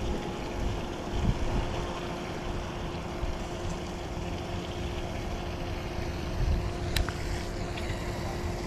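Wind buffeting the microphone over a steady low hum, with a single sharp click about seven seconds in.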